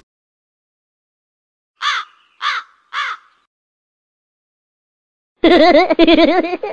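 Three short crow caws, about half a second apart: the stock variety-show effect for an awkward, deadpan moment. About five and a half seconds in, a louder wavering pitched sound starts.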